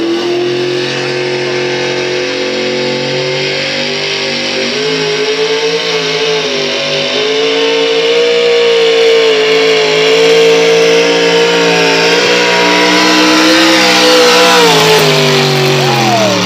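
A pickup truck's engine held at full throttle as it drags a weighted pull sled. It is a loud, steady drone that wavers slightly, then falls in pitch near the end as the throttle comes off at the end of the pull.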